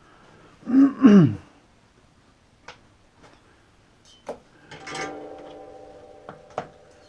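Small workbench handling sounds: a brief grunt-like vocal sound about a second in, a few light knocks, then a metal object struck or set down that rings for about two seconds as it fades, with two more knocks near the end.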